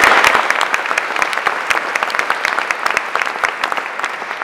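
Audience applauding, loudest at the start and fading as it thins out, with single claps standing out near the end.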